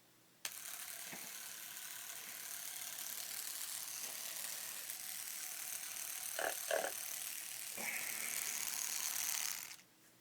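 Battery-powered homemade tattoo machine, built from a mechanical pencil, tape and a guitar-string needle, switched on about half a second in and running steadily as it touches up a tattoo, then cut off suddenly near the end. A couple of brief knocks come about six and a half seconds in.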